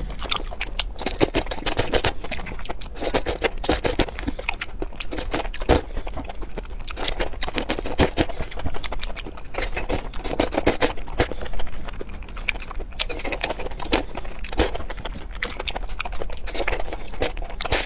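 Close-miked eating: whole baby bok choy stalks slick with chili oil slurped into the mouth and crunched, with wet smacking and many sharp crisp clicks in irregular bursts.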